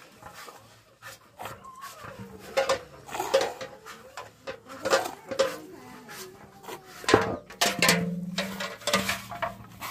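Buffalo milk squirting by hand into a steel tumbler, in a rapid series of short squirts about two to three a second, with a sharper knock about seven seconds in.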